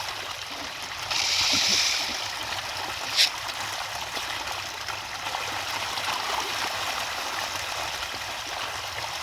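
Water running steadily, like a stream or trickle, with a louder hissing surge of water about a second in and a single sharp click or knock about three seconds in.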